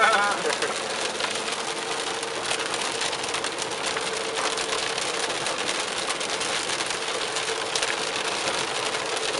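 Heavy rain hitting a car's roof and windshield, heard from inside the cabin as a dense patter of drops, over a steady hum from the car.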